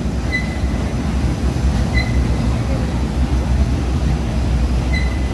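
Hitech-SH10T industrial waste shredder line running under load: a loud, steady low rumble of machinery. Three short high beeps sound over it, about a second apart near the start and again near the end.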